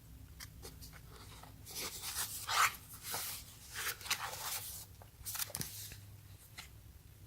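Cardboard product box being handled and turned in the hands: a string of rustling scrapes with a few light clicks and knocks.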